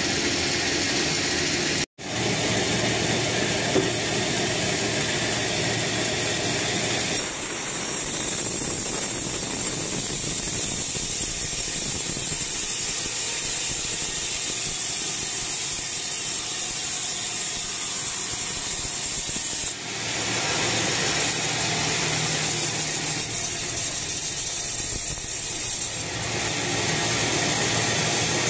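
Log band sawmill running and cutting through a teak log on its carriage, a steady mechanical noise. It drops out for an instant about two seconds in and changes character abruptly a few times.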